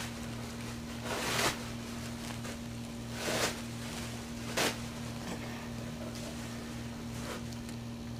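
Cloth rustling in three short bursts as a hand moves over the bedding and the dog, the third a brief sharp knock, over a steady low electrical hum.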